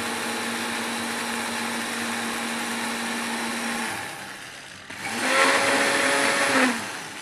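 Electric spice grinder running on dry whole spices, grinding them coarsely for pickle masala. It runs steadily for about four seconds and winds down, then gives a second, louder burst about five seconds in that stops just before the end.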